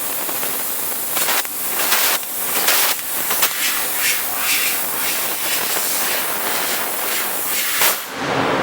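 Hans Laser G3015 fiber laser cutting machine running, its cutting head giving a steady gas hiss with a run of brief louder surges. Near the end the hiss drops away, leaving a lower hum.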